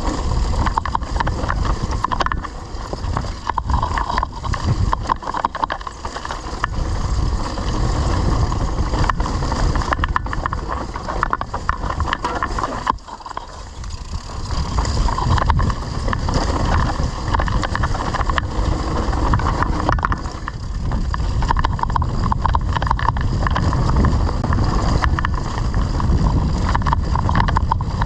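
Mountain bike riding a rough off-road trail, heard from a camera on the bike or rider: constant rumbling and irregular rattling from the tyres and bike over the bumps, with wind on the microphone. The noise eases briefly about thirteen seconds in.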